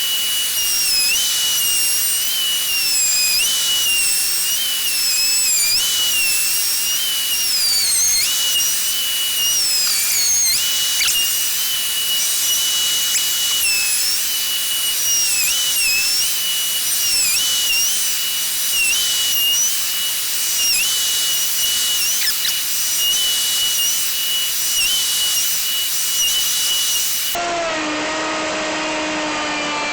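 Router on a slab flattening mill cutting across a burr oak plank: a steady high-pitched motor whine that dips in pitch every second or two as the bit takes load on each pass. Near the end it changes suddenly to a lower, slowly falling tone.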